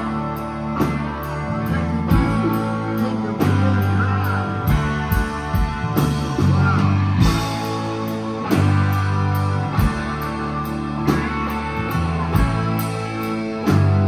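A live rock band playing loudly: electric guitars over bass and a drum kit keeping a steady beat with regular cymbal strokes.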